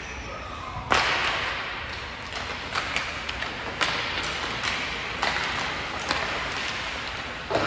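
Sharp cracks of hockey sticks and puck during play on an ice rink, echoing in the arena. There is a loud one about a second in, then several lighter knocks.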